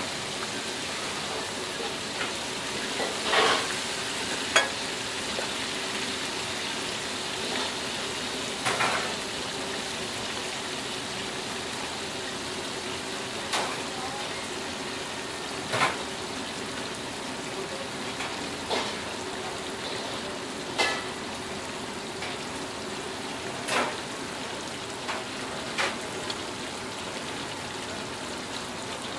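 Mantis shrimp deep-frying in a wok of hot oil: a steady sizzle of bubbling oil, with a short sharp pop every few seconds.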